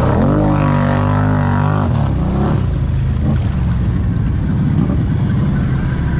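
Polaris RZR High Lifter side-by-side's engine revving up just after the start and holding high for about a second and a half. It then drops back about two seconds in and runs on lower and steady as the machine wades through deep creek water.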